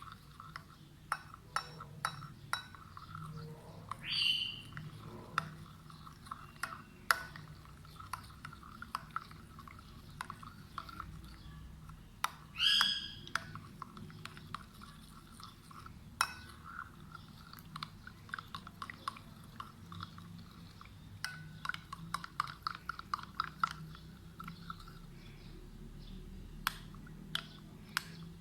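A spoon stirring yeast, salt and warm water in a cup, clinking and tapping against the sides many times. Two short, higher calls from a bird come through about 4 and 13 seconds in.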